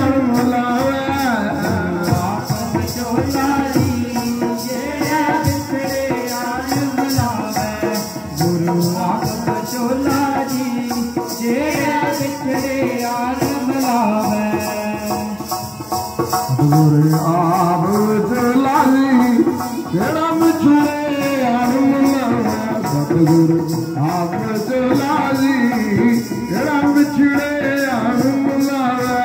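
Sikh devotional kirtan: a man singing a simran chant to harmonium, with a rattling hand percussion keeping a steady beat.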